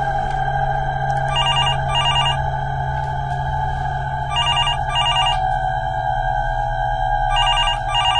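Telephone ringing in double rings: two short trills about half a second apart, the pair repeating about every three seconds, three times. Under it runs a steady droning background music.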